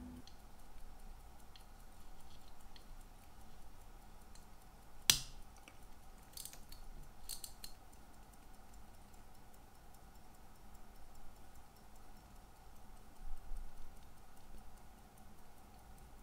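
Faint ticking of a restored Cyma 777 hand-wound pocket watch movement beating at 18,000 beats per hour. A sharp click about five seconds in and a few lighter clicks just after come from the silver case being handled. A faint steady hum runs underneath.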